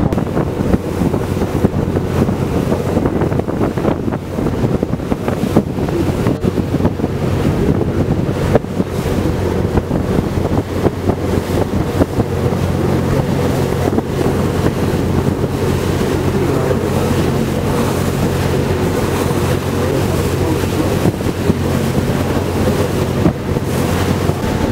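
A tour boat's engine runs with a steady low hum under wind buffeting the microphone and water rushing past the hull.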